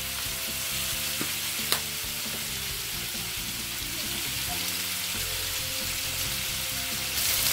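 Chicken pieces sizzling as they fry in hot oil in a pan, with one sharp click about two seconds in.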